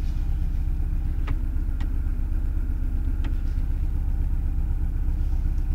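Ford Sierra DOHC four-cylinder engine idling steadily on a cold engine shortly after a winter cold start, heard from inside the cabin, with a few faint clicks in the first few seconds.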